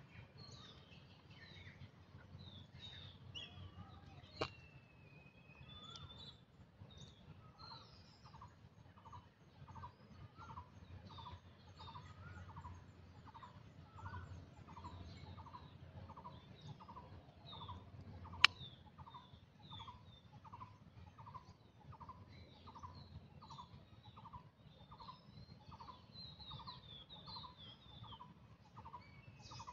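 Birds calling: one bird repeats a short note evenly, about three times every two seconds, over scattered higher chirps from other birds. A sharp click sounds about four seconds in, and a louder one just past halfway.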